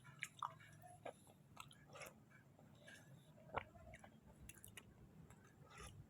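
Close-up eating sounds: soft, wet chewing of sweet potato kolak, with scattered small mouth clicks and smacks and one louder click about three and a half seconds in.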